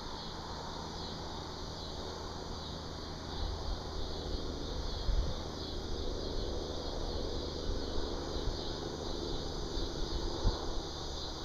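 Steady high-pitched chorus of insects, such as crickets, in the evening. From about a third of the way in a low rumble joins, with two brief knocks, one in the middle and one near the end.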